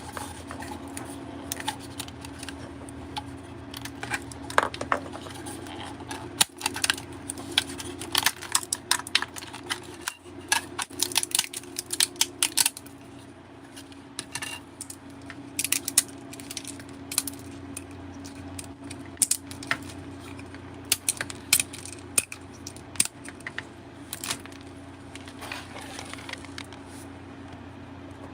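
Many irregular sharp clicks and clinks of small hard objects over a steady machine hum.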